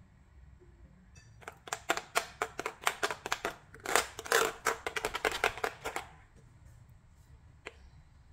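A metal spoon stirring thick flour batter in a glass bowl, clicking and tapping against the glass several times a second with some wet mixing noise. The stirring starts about a second and a half in and stops about six seconds in, and there is one more tap near the end.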